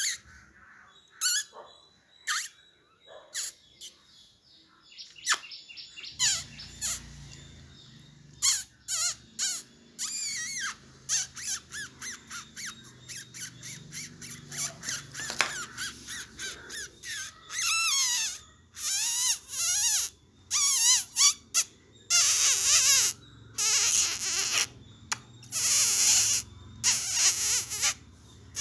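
A puppy whining in high, wavering squeals, short and spaced out at first, then longer, louder and nearly continuous over the second half.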